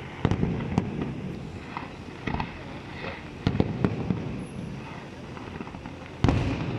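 Aerial fireworks bursting: a run of sharp, irregular bangs with crackling between them, several in quick succession about three and a half seconds in and the loudest bang near the end.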